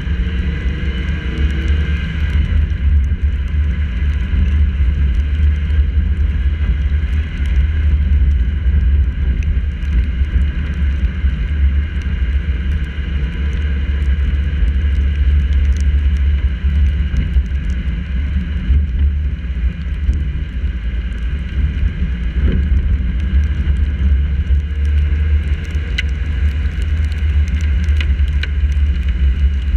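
Steady low rumble of wind and tyre noise on a GoPro mounted on the hood of a car driving on wet roads in the rain. Occasional sharp ticks near the end, like raindrops striking the camera housing.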